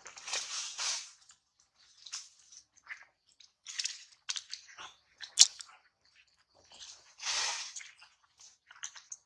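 Leaves rustling and crackling in irregular bursts as a baby macaque climbs through the branches close by. There is a longer rustle near the start and another about seven seconds in, with scattered crackles between them and one sharp snap about five seconds in.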